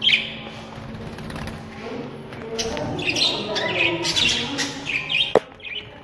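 Budgerigars chirping and chattering in short high calls, with a single sharp knock about five seconds in.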